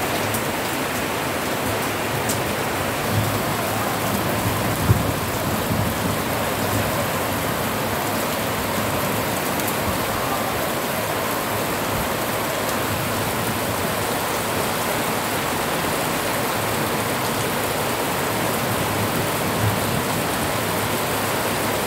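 Heavy rain pouring down steadily, a dense even hiss, with a few brief louder knocks of drops.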